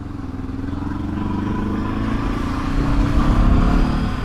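Honda CB500X's parallel-twin engine pulling away under throttle, its pitch and loudness rising over the first three seconds.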